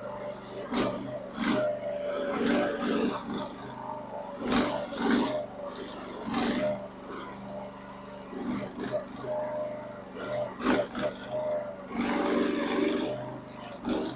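Huayee mini excavator running, a steady engine note with a wavering hydraulic whine, broken by frequent irregular knocks and clanks as the machine is worked.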